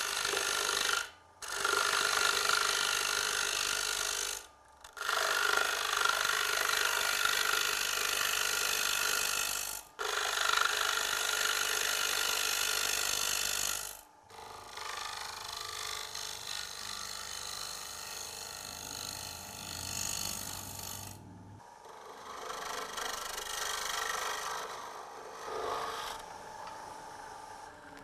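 Turnmaster's round tungsten carbide cutter shaving the outside of a wooden bowl blank spinning on a lathe: a scraping hiss of cutting in several passes, each cut off abruptly. The passes are lighter and quieter from about halfway.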